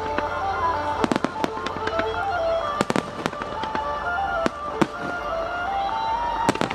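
Aerial fireworks bursting in sharp bangs, some in quick pairs, over music with a clear melody.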